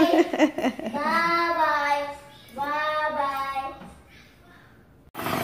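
A baby's voice in two long, sing-song vowel sounds that rise and fall in pitch, typical of an 11-month-old's babbling; a short burst of noise breaks in suddenly near the end.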